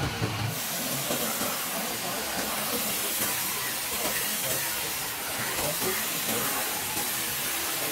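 Compressed-air spray gun hissing steadily as it sprays paint, starting about half a second in.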